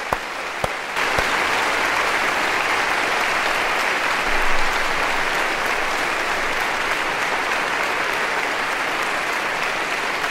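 Applause: a few separate claps at first, swelling about a second in into steady clapping that keeps up.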